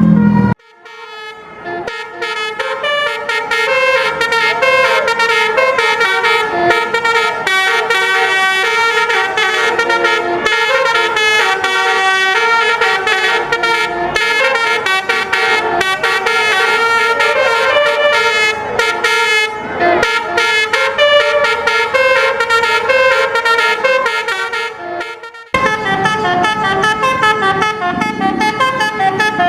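Indonesian bus 'telolet basuri' horn, a multi-trumpet musical air horn, playing a quick tune of many short notes. The tune fades out near the end and a second basuri tune starts abruptly after it.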